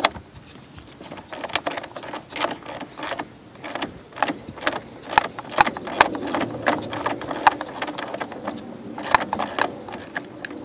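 Ratchet wrench with a 10 mm socket working the negative battery terminal nut loose: a run of sharp, irregular metallic clicks and clinks.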